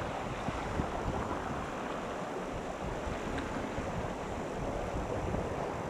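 Fast mountain river running over boulders: a steady rush of water, with wind rumbling on the microphone.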